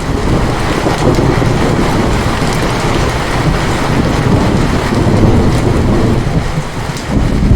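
Heavy rain with a deep, continuous rumble of thunder underneath; the rumble eases briefly near the end and swells again.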